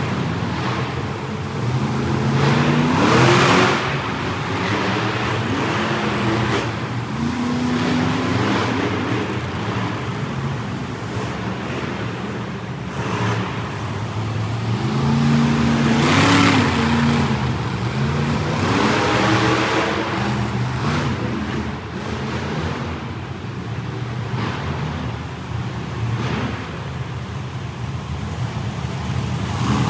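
Monster truck engines running and revving, the pitch rising and falling, with louder throttle surges several times.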